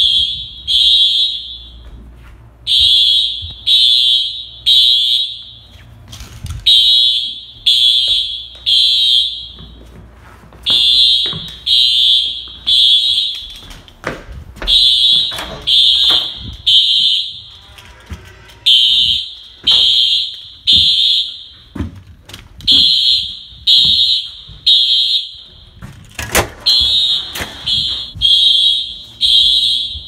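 Dormitory fire alarm sounding the temporal-three evacuation signal: three loud, high-pitched, ear-piercing beeps, a pause, and again, repeating about every four seconds. Scattered knocks and handling noise fall between the beeps.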